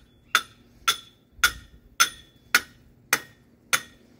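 Shop hammer tapping a metal fence-post extension down into a metal fence post: seven even strikes, about two a second, each with a short metallic ring.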